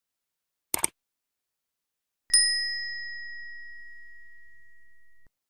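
End-screen sound effects: a short mouse-click sound, then about a second and a half later a single bright bell ding, the notification-bell chime. It rings on for about three seconds, fading, then cuts off suddenly.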